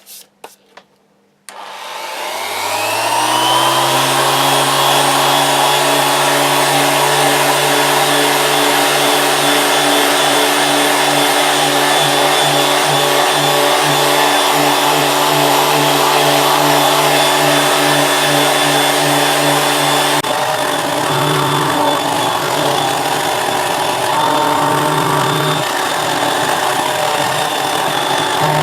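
A few handling clicks, then an electric random orbit sander starts up, rising in pitch over about two seconds, and runs steadily while sanding cured 2K lacquer with high-grit paper to flatten its orange-peel texture. About two-thirds of the way through its tone becomes uneven and wavering.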